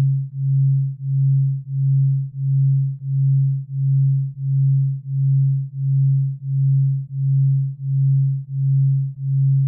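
A low synthesized sine tone for theta brainwave entrainment, swelling and fading evenly about one and a half times a second. It is a single pure pitch with nothing else in it.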